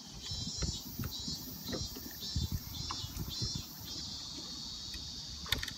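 A cicada in the shoreline trees calling in a run of pulsing high buzzes, about two a second. Near the middle it settles into a steady buzz. Low knocks and rumble from the boat and the fishing tackle run underneath.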